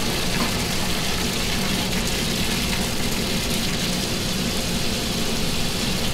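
Commercial kitchen background noise: a steady rush over a low hum, the rush cutting off suddenly at the very end.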